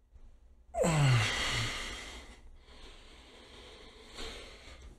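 A man's loud stretching sigh about a second in: a breathy exhale with his voice sliding down in pitch. Quieter breathing follows.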